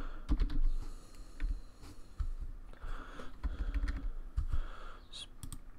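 Computer keyboard and mouse in use: irregular taps and clicks, with a few dull low thumps.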